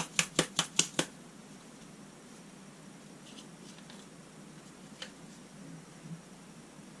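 Seasoning shaker shaken over a skillet: a quick run of about six sharp rattling taps, about five a second, in the first second, then only a few faint ticks.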